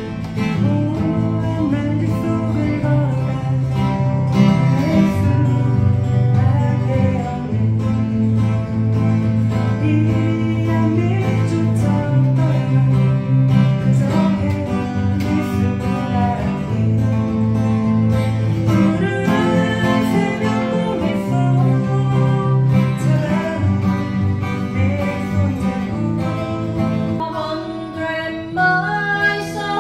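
Live acoustic guitar music with a steady bass line underneath, played continuously.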